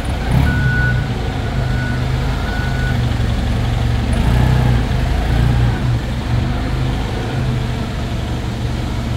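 Toyota 8FG50U propane-fuelled forklift engine running as the truck manoeuvres, with its reverse alarm beeping about once a second for the first three seconds, then stopping while the engine runs on.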